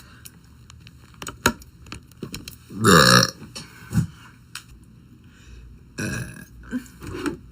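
A girl burping: one long, loud burp with a wavering pitch about three seconds in, followed by a few shorter, quieter burps.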